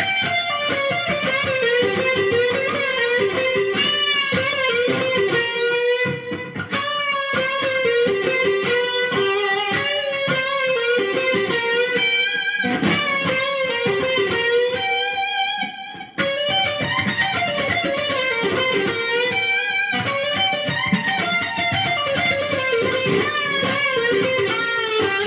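Fender Stratocaster electric guitar playing a single-note lead line in G minor, full of string bends and wobbling vibrato, with notes deliberately bent a little sharp or flat of their target so they sound slightly sour. The playing breaks off briefly twice, about six and sixteen seconds in.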